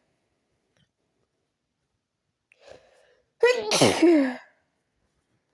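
A person's loud, voiced sneeze, one of a sneezing attack brought on by chhinkni sneezing powder. It comes about three and a half seconds in, lasts about a second and falls in pitch, after a faint breath in.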